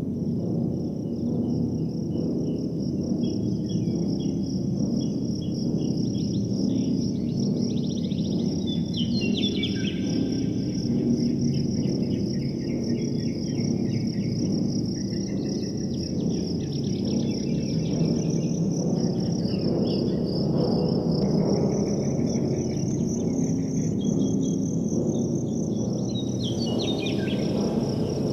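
Night-time soundscape: a steady high cricket trill, with chirping calls coming and going, over a dense low drone.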